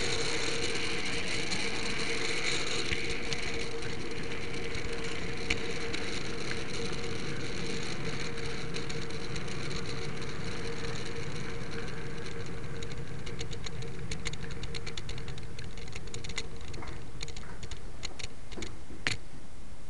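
H0m model train running along its track, heard from a camera riding on a flat wagon: a steady whir of the wheels on the rails and the locomotive's motor. From about two-thirds of the way through, a run of sharp clicks sets in over the whir.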